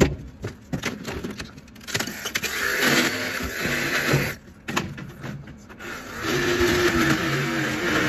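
Cordless reciprocating saw cutting through a wooden shipping crate, running in two spells of about two seconds each, after some knocks and clatters of crate wood.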